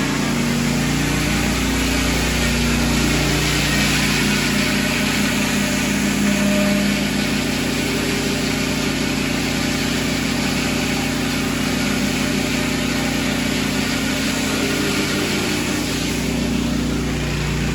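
Engine-driven pressure washer running steadily, with the hiss of its high-pressure water jet spraying concrete.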